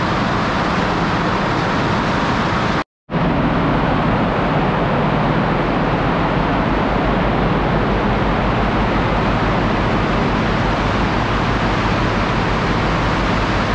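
Loud, steady din of a cement plant's bag-packing and conveyor machinery, with a brief total dropout about three seconds in.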